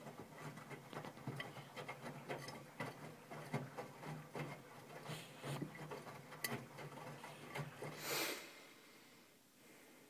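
Miele W 531 front-loading washing machine in its main wash: the drum turns with a low motor hum while wet laundry tumbles and sloshes in a stream of irregular soft knocks and swishes. A louder swish comes about eight seconds in, then the drum stops and the hum falls away.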